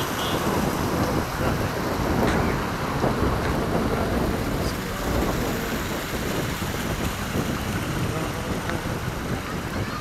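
Water running and trickling in a roadside stream fed by a small waterfall, with wind buffeting the microphone in gusts.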